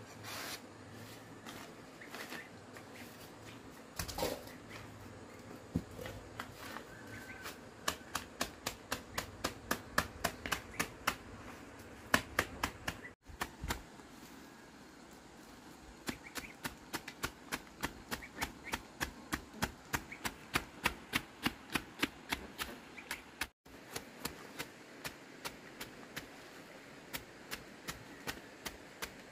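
Knife chopping on a cutting board in quick, even strokes, about four a second, in two long runs that each break off abruptly.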